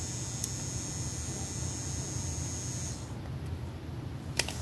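Electric nail file drill running with a steady high-pitched whine that cuts off suddenly about three seconds in as the drill is switched off, over a low steady hum, with a short click near the end.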